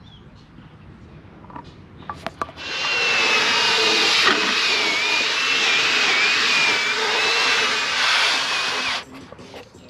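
Wet vacuum of an upholstery shampoo extractor: a few clicks, then the motor switches on and runs loud and steady with a high, slightly wavering whine for about six seconds before cutting off suddenly.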